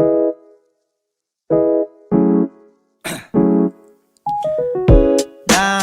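Background music: separate electric piano chords with gaps between them, then a melody and a low beat coming in near the end.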